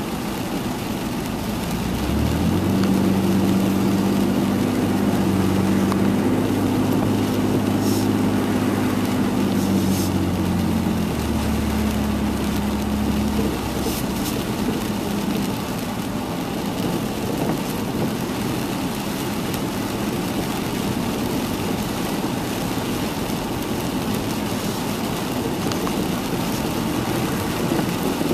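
Inside a car driving in heavy rain: a steady rush of rain and wet tyres on the road, under the car's engine. A low engine drone swells about two seconds in, drops in pitch around eleven seconds and fades away a few seconds later.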